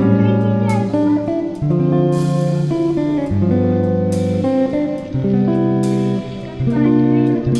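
Background music led by guitar, with held notes changing about every second and a cymbal-like crash on some beats.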